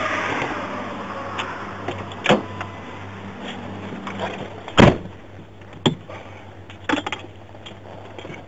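Road noise from a passing vehicle swelling and fading, then a string of sharp knocks and clicks, the loudest about five seconds in, over a steady low hum.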